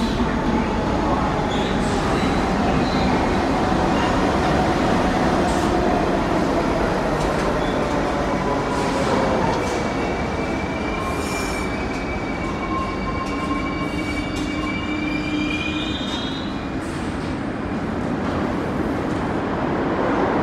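R62A subway train on the 1 line pulling into the station and braking to a stop: a whine that falls in pitch as it slows, under a steady rumble of the cars rolling by. High squeals rise in pitch in the last moments before it stops.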